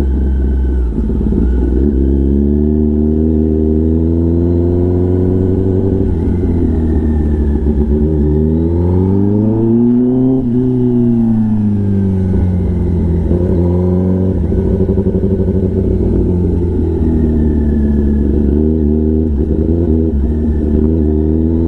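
Kawasaki ZX-10R's inline-four engine through an SC-Project titanium exhaust, under way. The engine note holds fairly steady, rises smoothly to a peak about ten seconds in, then drops back.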